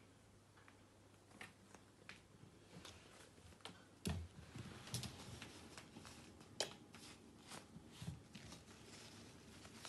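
Faint, scattered taps and clicks of a kitten scampering across a hard floor, with a heavier thump about four seconds in and a few sharper taps after it.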